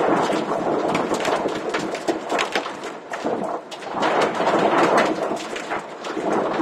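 Torrential rain with hail pelting down: a dense, loud patter of many sharp hits that swells and eases.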